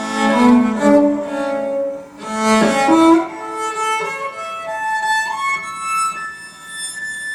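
A cello recording played back over hi-fi loudspeakers: long bowed notes, moving from the low register up into higher, softer notes about three seconds in.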